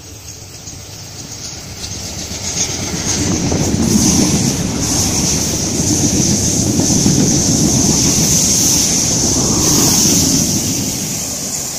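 Sydney Trains Waratah electric multiple-unit train passing through the station without stopping: it builds up over the first few seconds as it approaches, holds a loud steady rumble with a high hiss as the carriages go by, and eases off near the end.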